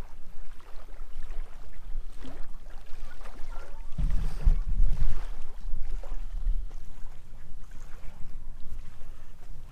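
Wind buffeting the microphone as a low rumble, with a heavier gust about four seconds in, and faint knocks and rustling from the camera being handled and moved.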